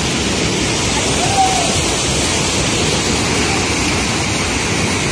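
Steady rush of water gushing from a culvert into a concrete tank, an even unbroken noise. A brief faint call comes about a second and a half in.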